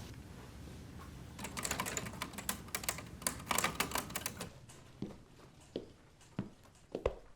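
Typewriter keys being struck in a fast, dense burst of typing about a second and a half in, lasting about three seconds. Slower, separate clicks follow about every half second.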